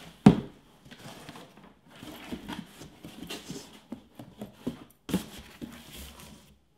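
Corrugated cardboard shipping box being folded shut by hand: a sharp thump just after the start, then rustling and scraping of the cardboard flaps with light knocks, and another thump about five seconds in.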